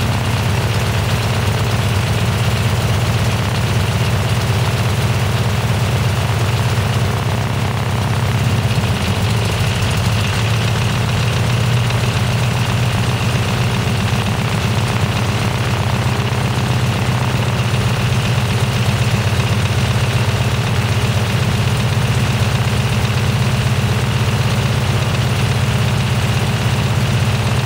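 Cessna 195's Jacobs R-755 seven-cylinder radial engine running steadily on its first run after 26 years in storage, with the engine speed picking up slightly about nine seconds in.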